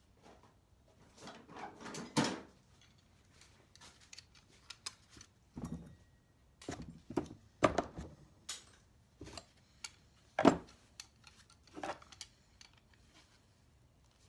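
Scrap metal pieces being handled and set down: a string of separate knocks and clinks, the loudest about two, eight and ten seconds in.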